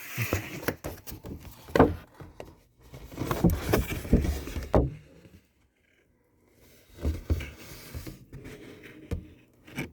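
Figure packaging being handled: irregular rustling, scraping and light knocks of cardboard and plastic, stopping for about a second halfway through, then starting again.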